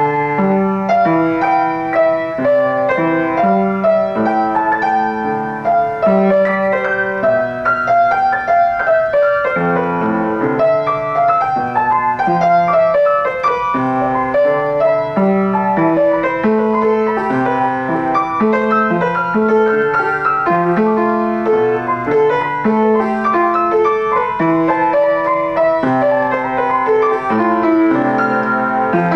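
Piano music: a continuous flow of notes without pause.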